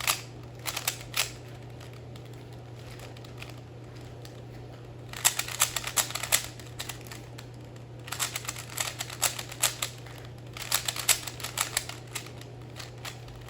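Plastic Rubik's Cube clicking and clacking as its layers are turned quickly by hand, in several quick flurries with short pauses between them.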